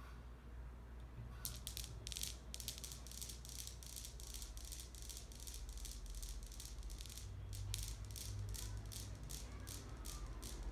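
A rapid, even rattling, about three strokes a second, starting about a second and a half in.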